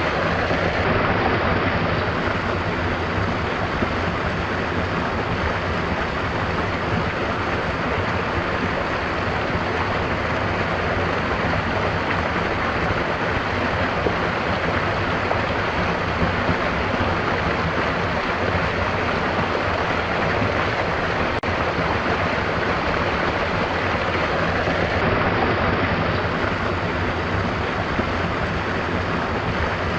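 A stream of water flowing steadily, a continuous rushing with no pauses.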